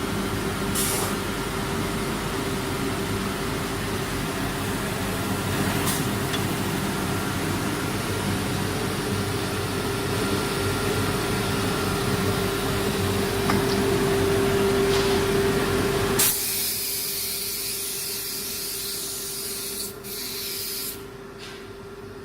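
CNC woodworking router running: a steady whine under a loud hiss. The hiss stops abruptly about sixteen seconds in, while the whine carries on.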